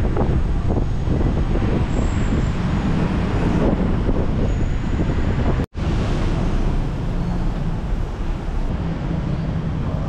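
Wind buffeting the microphone over steady traffic noise, broken by a brief silent gap a little before six seconds in.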